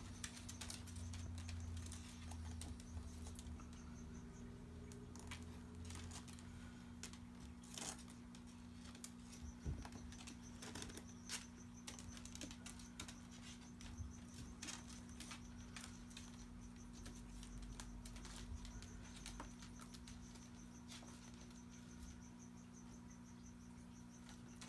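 Savannah monitor lizards' claws clicking and scraping on a hardwood floor as they walk, faint scattered taps over a steady low hum.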